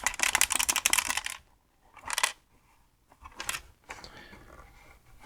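A small loose screw rattling and clicking around inside the MCP-40 printer/plotter's case as the machine is tilted and shaken. The fast rattle stops about a second in, and two short rattles follow.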